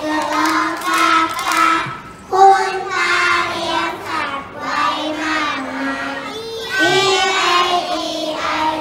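A group of young children singing together in unison, with a short break about two seconds in.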